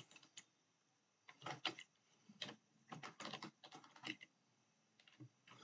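Computer keyboard typing: faint keystroke clicks in short, irregular runs as a word is typed.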